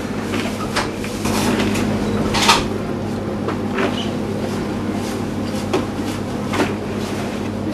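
Hands mixing a large batch of wet mussel meat, pearl barley and chopped vegetables in a plastic tub: irregular rustles and knocks, the sharpest about two and a half seconds in, over a steady low hum.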